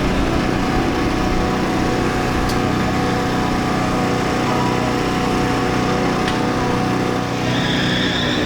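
Carbureted big-block V8 idling steadily, with a higher hiss joining near the end.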